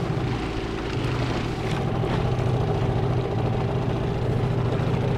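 Gladiator 9.8 outboard motor running steadily at an even speed during its break-in.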